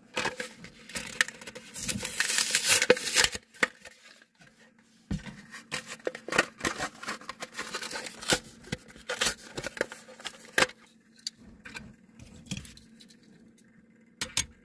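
Plastic blister pack and cardboard backing card crinkling, tearing and scraping as a Matchbox die-cast car is opened out of its packaging, in two long spells of crackling. A couple of sharp clicks near the end as the toy car is pressed onto a display stand.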